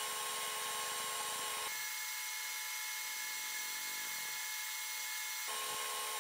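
Enjoywood M4 galvo fiber laser engraver running as it marks a logo into steel pliers: a steady high-pitched whine and hiss. The mix of tones shifts about two seconds in and again near the end as the scan moves on.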